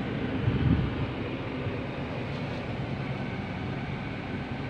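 Toyota Wigo idling, heard from inside the cabin as a steady low hum with a faint noise haze. A brief louder low thud about half a second in.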